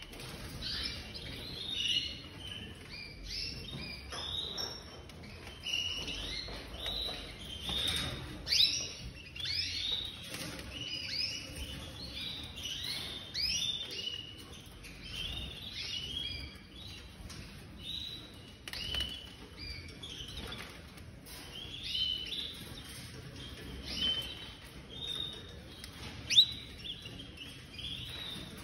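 Canaries chirping and calling in quick, repeated short notes throughout, several birds overlapping. One sudden, sharp, loud sound stands out near the end.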